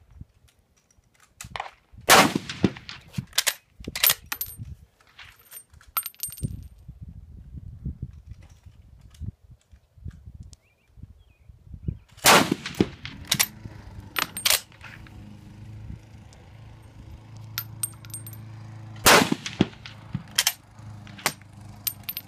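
Three shots from a K-31 Swiss straight-pull rifle in 7.5×55 mm Swiss, about ten and then seven seconds apart. Each loud crack with a ringing tail is followed by a few lighter metallic clacks as the straight-pull bolt is worked. A low steady hum comes in about halfway.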